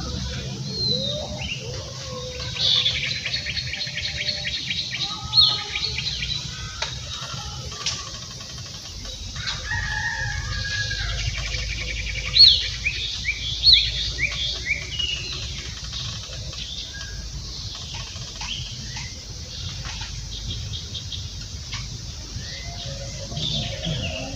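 Birds chirping and calling, with short high chirps and quick runs of falling notes, over a steady low rumble.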